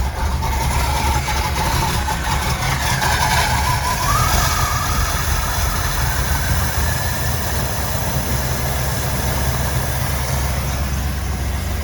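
334 cubic-inch stroker small-block Chevy V8 running steadily at idle, with a faint whine that climbs in pitch about three to four seconds in. The idle still needs more adjustment, in the owner's view.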